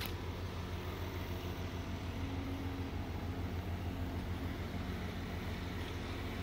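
Steady low rumble of wind buffeting the microphone, with no distinct events.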